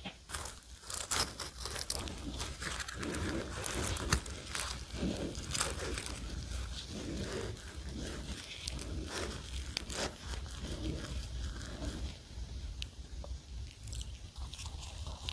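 Flaky layered croissant pastry crackling and crunching as gloved hands tear it apart, then as it is bitten near the end. The crackling is close to the microphone and thins out for the last few seconds.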